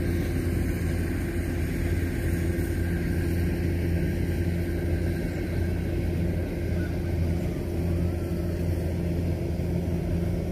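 Kubota DC-93 combine harvester's diesel engine running steadily under load, a continuous low hum with an even engine drone.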